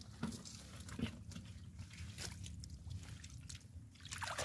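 Faint, scattered splashes and squelches of hands groping through shallow muddy water and mud among water plants.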